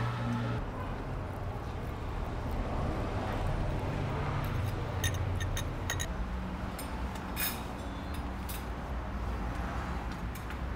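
Steady low background hum with a few light clicks and clinks of forks and spoons against ceramic bowls and plates as people eat.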